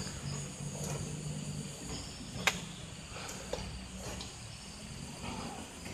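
Outdoor background with a steady insect buzz and a low drone underneath, broken by one sharp click about two and a half seconds in and a fainter tick a second later.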